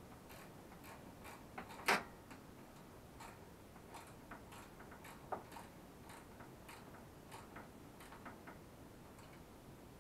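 Light, irregular clicks and taps of small parts being handled while a headlight is fitted to a children's quad bike, with one sharper click about two seconds in.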